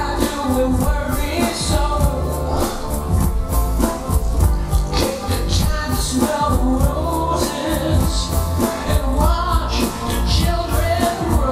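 Rock music with a strong bass line and a steady beat, and a wavering melody line above it.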